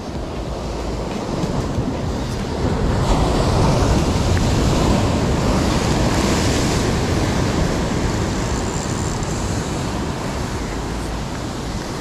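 Ocean surf breaking and washing over the rocks just below, a continuous churning rush that swells to its loudest a few seconds in as a wave crashes against the rock, then eases.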